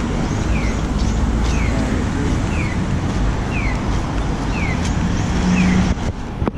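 Audible pedestrian crossing signal chirping, a short falling chirp about once a second, over steady street traffic noise.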